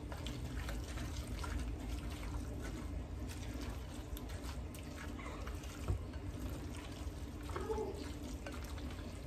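A fork stirring mayonnaise-dressed tuna salad in a glass bowl: wet squishing with many small clicks of the fork against the glass, one slightly louder about six seconds in, over a low steady hum.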